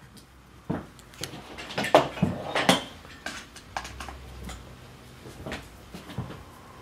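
Mechanical pencil drawing on paper laid on a tabletop: irregular clicks and knocks with brief scratchy stretches, loudest about two to three seconds in.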